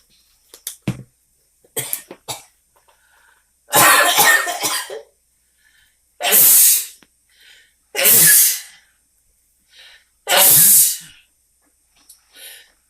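A person coughing in four loud fits, about two seconds apart, the first one the longest, after breathing in cayenne pepper dust.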